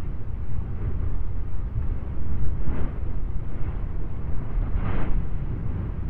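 Volcanic lava fountain churning in its crater: a continuous deep, thunderous rumble broken by louder splashing bursts of lava, the strongest about three and five seconds in.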